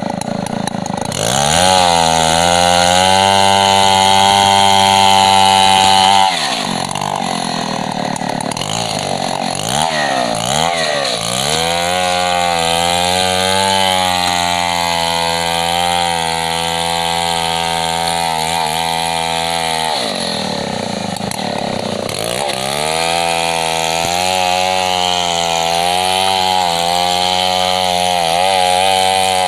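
Stihl MS 070 two-stroke chainsaw at full throttle, ripping lengthwise along a gmelina log to mill it into boards. The engine revs up into the cut about a second and a half in, eases off and wavers twice (around a quarter and two thirds of the way through), and each time comes back up to a steady high pitch under load.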